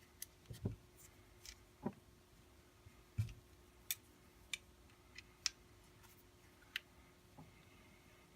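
Irregular light clicks and knocks, about a dozen, as screws and small parts of a pistol holster are handled and worked loose during disassembly.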